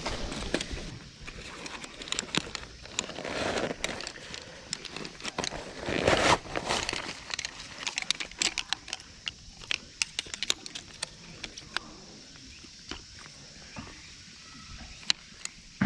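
Rustling and crinkling with many scattered sharp clicks and taps, as of gear being handled close by, loudest about six seconds in.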